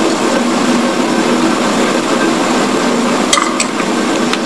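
Steady hiss and background noise of an old sermon recording during a pause in the talk, with three sharp clicks near the end.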